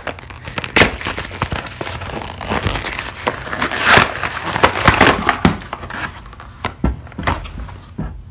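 Cardboard box being pulled open and handled: crinkling, scraping and tearing of cardboard and packaging, loudest in the middle. It then settles into lighter rustling with a few sharp knocks.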